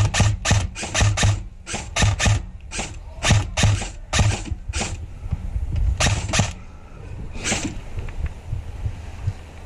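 Airsoft rifle fired in a quick string of sharp shots, roughly three or four a second, then three more spaced out over the next couple of seconds.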